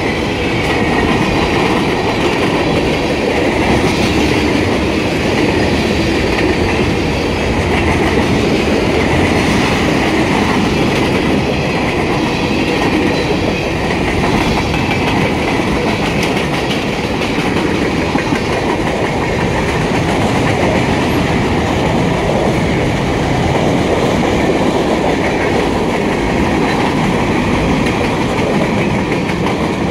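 Freight cars of a passing freight train rolling by at close range: the steady, loud noise of steel wheels running on the rails.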